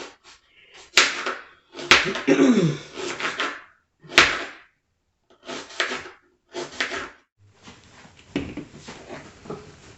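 Kitchen knife slicing through carrots and knocking on a cutting board: a few sharp knocks about a second apart, then a couple of shorter cuts, settling into a faint steady hiss in the last couple of seconds.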